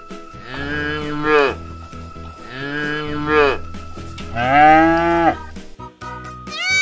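Cows mooing three times, each call about a second long, over steady background music.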